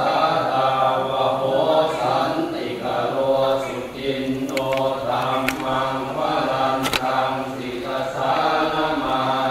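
A group of voices chanting Buddhist verses in unison, as in a Thai temple's daily chanting service. It is a low, steady recitation in phrases, with short breaks every second or two.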